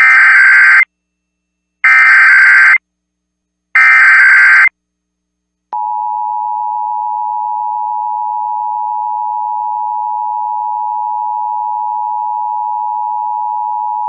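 Emergency Alert System encoder sending its SAME digital header as three short, loud data bursts of just under a second each, about a second apart. After a pause, the steady two-tone EAS attention signal starts a little under six seconds in. This is the opening of a Required Monthly Test alert.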